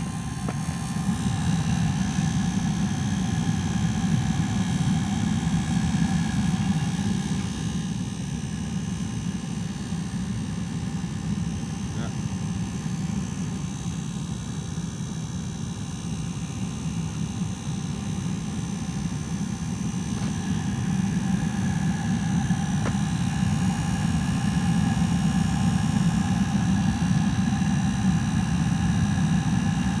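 Southwind Stewart-Warner 12-volt gasoline heater running: a steady low combustion rumble with a fainter steady whine above it, a little louder in the first few seconds and again in the second half.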